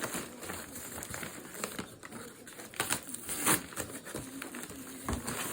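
Packaging crinkling and rustling in irregular bursts as a box of snacks is unpacked by hand, loudest about three seconds in.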